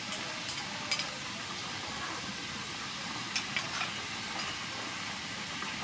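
Sauce sizzling steadily in hot oil in a frying pan, with a few light spoon clicks against the pan and bowl.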